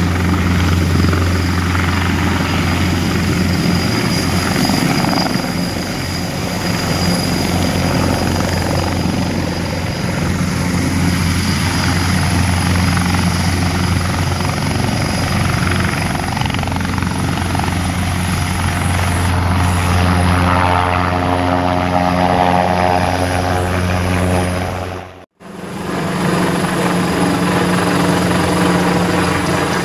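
Twin-turbine Airbus EC725 Caracal helicopter running loud and steady as it hovers and flies low, a constant low rotor drone with turbine whine over it. About 25 seconds in the sound cuts out for a moment, then the same rotor drone resumes.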